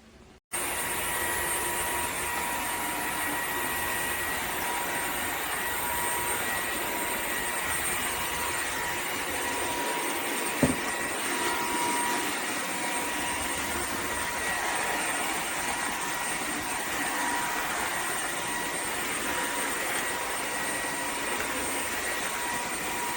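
Dreame H14 wet-dry vacuum mop running steadily, its motor a constant rush of air with a steady high whine, starting abruptly about half a second in. A single short knock comes about ten seconds in.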